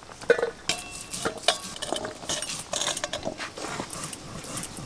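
Stainless-steel slotted spoon clinking against steel pots and a bowl as parboiled cauliflower florets are scooped out of their cooking water: a run of light metallic knocks, some ringing briefly.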